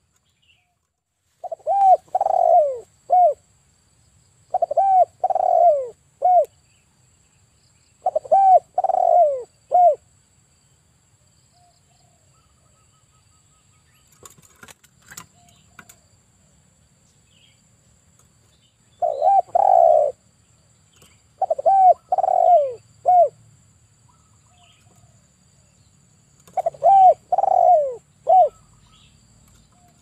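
Male spotted dove cooing: about six phrases, each of two drawn-out coos followed by a short final one, with a pause of several seconds midway.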